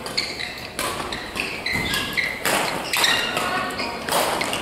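Badminton rally: rackets striking the shuttlecock in sharp hits, several over a few seconds, with short high squeaks of shoes on the court floor.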